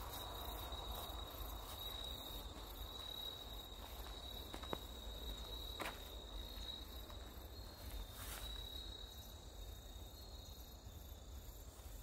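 Crickets and other insects chirping steadily, one thin high note held throughout with a faster pulsing above it, and a few faint clicks.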